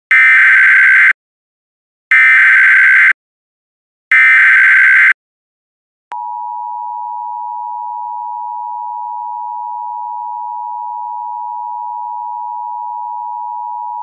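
Emergency Alert System tones: three loud one-second bursts of SAME digital header data about a second apart, the sound that opens an alert. About six seconds in, the steady two-tone EAS attention signal starts, quieter than the bursts, and holds for about eight seconds.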